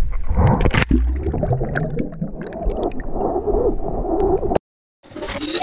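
Underwater gurgling and bubbling of river water, heard through a camera on a magnet-fishing rope as the magnet goes under, with a few knocks. It cuts off sharply about four and a half seconds in, and intro music starts just before the end.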